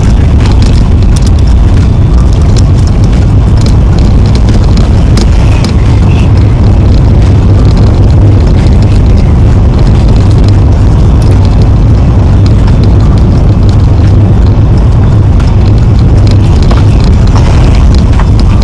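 Loud, steady low rumble inside a moving Kia Rio: road and wind noise.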